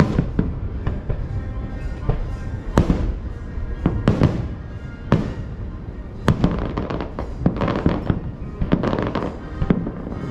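Distant aerial fireworks bursting: a run of sharp bangs with echoing tails, about one a second, coming thicker and faster between about six and nine seconds in.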